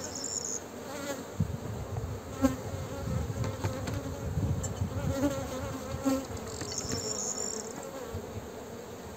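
Honeybees buzzing steadily around an open-air beehive, with a few short knocks as stones are set down on the hive's wooden lid.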